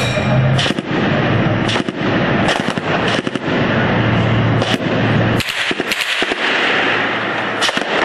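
Irregular gunfire, about a dozen sharp shots at uneven intervals, over the steady low rumble of tanks moving.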